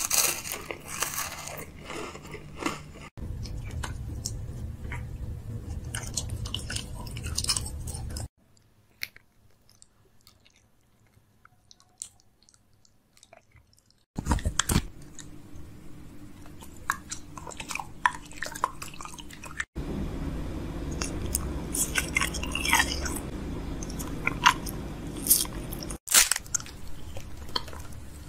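Close-miked biting and crunchy chewing of food, sharp crunches over steady chewing, in several separate takes with a stretch of near silence about a third of the way through.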